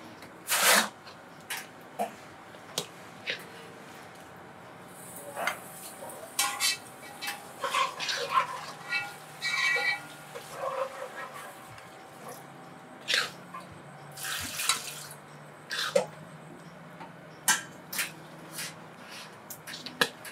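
Metal spatula scraping and clanking against a steel wok in short, irregular strokes as prawn curry is scooped out onto a plate.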